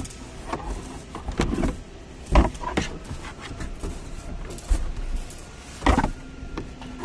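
Scattered knocks and clatter of plastic interior trim being handled inside a car's cabin as the loosened centre console is moved aside. There are several sharp knocks, the loudest about two and a half seconds in and again near six seconds.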